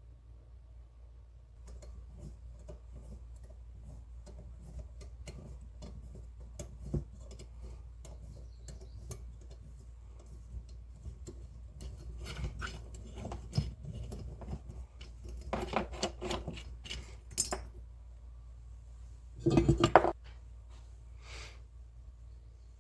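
Metal clinking and rattling, many small knocks and clicks like tools and small metal parts being handled, with a louder clatter about three-quarters of the way through.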